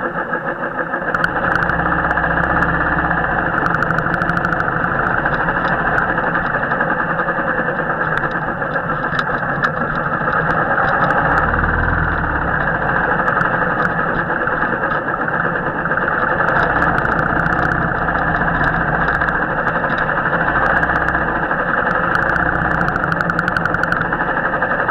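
Royal Enfield motorcycle's single-cylinder engine running steadily on the move, with a low rumble rising and falling every few seconds.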